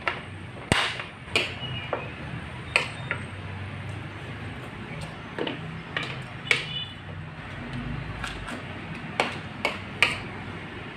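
Spoon and fork clinking and scraping against a plate while eating, in irregular sharp clicks roughly once a second, a few with a short ring. A steady low hum runs underneath.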